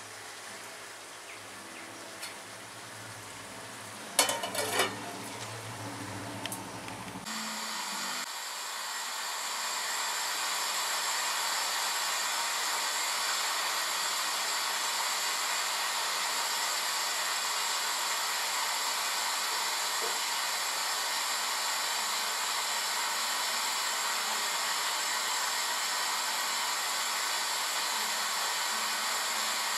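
Chicken curry sizzling in the pan, with a few sharp clatters about four seconds in. After an abrupt change about seven seconds in, a gas stove burner hisses steadily: it grows louder over a couple of seconds, then holds level.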